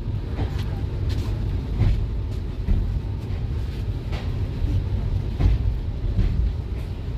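Passenger train running, heard from inside an ICF-built coach: a steady low rumble with irregular sharp clacks from the wheels on the track.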